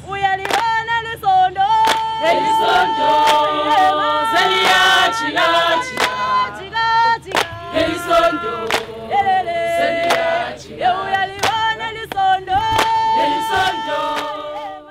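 A choir singing a cappella: several voices in harmony holding long notes, with sharp percussive strikes throughout. It stops abruptly at the very end.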